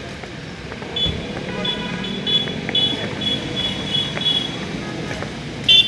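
Street traffic noise with a run of short, high beeps lasting a few seconds, then a short, loud vehicle horn toot near the end.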